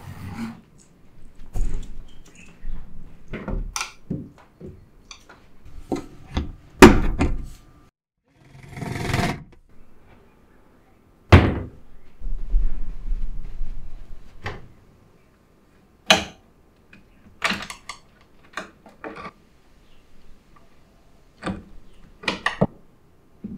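Irregular knocks and thunks from a white flat-pack bookcase and its glass-paned cabinet doors as they are handled and fitted. The blows are of varying strength, and there is a short rubbing scrape about nine seconds in.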